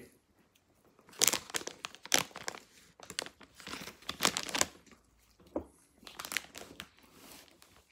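Plastic marshmallow bag crinkling in irregular bursts as hands rummage in it and pull marshmallows out.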